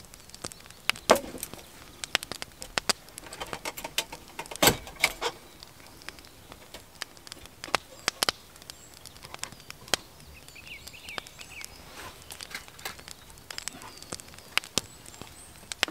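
Irregular metallic clicks and knocks from a brass hurricane lantern being handled and hung up just after lighting, with the two loudest knocks about one and four and a half seconds in. Faint bird chirps come in about eleven seconds in.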